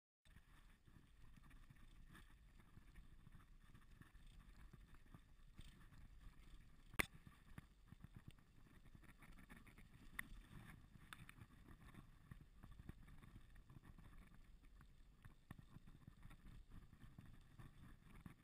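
Faint, steady low rumble of a bicycle rolling over a dirt road, with scattered small clicks and rattles and one sharp click about seven seconds in.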